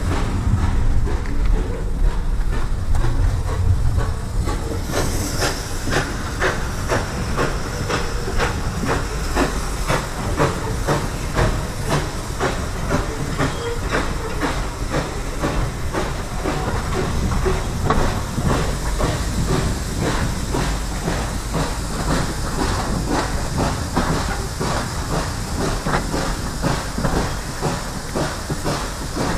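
Steam-hauled passenger train running, heard from a carriage window: a steady rumble with quick, regular clicks of the wheels on the track. A hiss of steam comes in about five seconds in and fades over several seconds.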